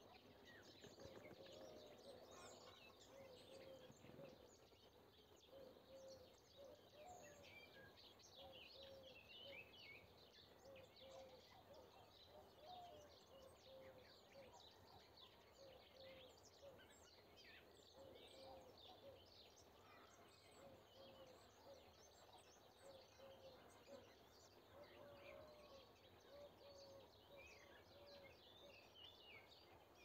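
Faint morning chorus of wild birds: many high chirps and trills overlapping, with a lower short call repeating about once a second underneath.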